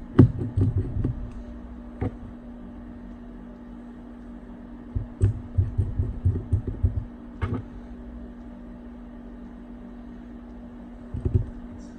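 Small clicks and taps of tools and an internal cover plate being handled and set back into an iPad mini 2: a cluster at the start, a single tick about two seconds in, a run of taps from about five to seven and a half seconds, and a couple more near the end, over a steady low hum.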